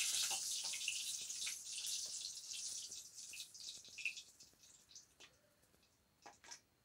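Hot oil sizzling in a kadai around eggs that are being fried and lifted out with a metal spatula; the sizzle fades after about three and a half seconds, leaving a few scattered pops.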